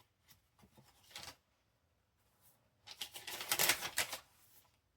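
Pages of a handmade paper junk journal being handled and turned: a few light taps and rustles, then a louder crisp paper rustle about three seconds in that lasts over a second.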